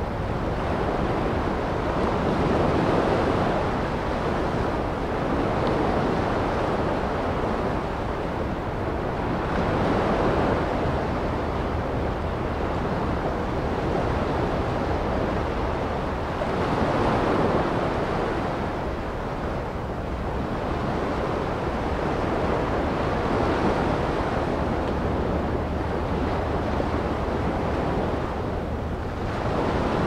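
Ocean waves washing up a sandy beach. The surf swells and falls back about every six to seven seconds, over a steady low rumble.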